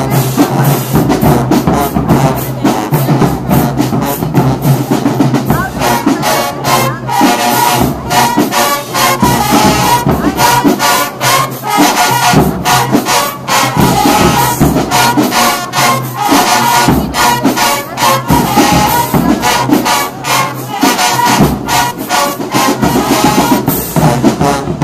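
Marching band playing loud and live at close range: saxophones and sousaphones carrying the tune over a steady beat of sharp drum strikes.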